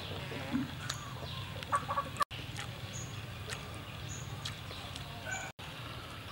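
Chickens clucking in short calls, with a few brief high chirps. The sound cuts out for an instant twice.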